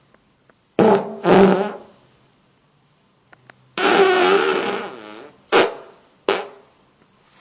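A run of five farts: two short ones about a second in, a longer wavering one around the middle, then two short, sharp ones near the end.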